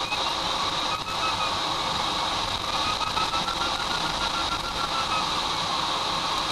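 Steady rush of airflow over a glider's canopy in flight, with a faint electronic variometer beeping in quick short pulses, its pitch edging up through the middle: the glider is climbing in lift.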